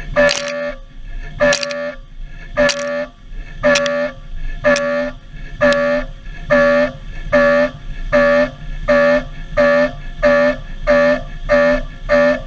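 Milling cutter cutting 4130 steel in repeated short passes. Each pass is a loud pitched whine from the cutter, often starting with a sharp click, and the passes come about once a second at first, then faster, about twice a second near the end.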